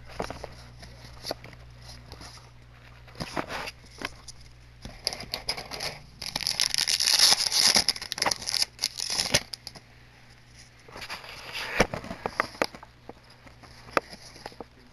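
Yu-Gi-Oh! trading cards and the box's plastic packaging being handled: crinkling rustles and light clicks, heaviest in a long burst around the middle and again a little later, over a faint steady low hum.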